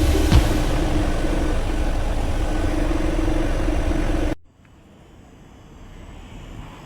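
Truck engine running steadily at idle, with one knock about a third of a second in. The sound cuts off abruptly about four seconds in, leaving a faint hum.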